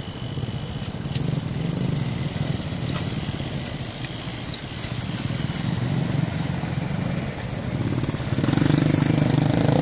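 Small motorcycle engines running, a steady low rumble that grows louder in the last second or so, with a brief high chirp about eight seconds in.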